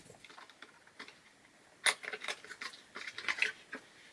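Small scissors snipping and clicking as they cut open packaging: a sharp snip about two seconds in, then a quick run of clicks and rustles.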